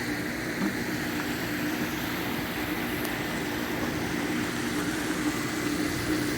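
Steady rush of water from a pond waterfall running after its spring start-up, with a steady mechanical hum underneath.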